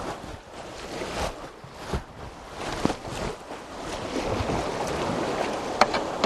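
Whitewater river current rushing steadily, with a few short sharp knocks, the sharpest near the end.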